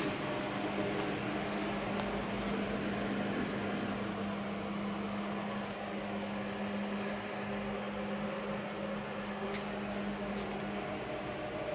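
Steady machine hum with a low droning tone that stops near the end, and a few faint ticks.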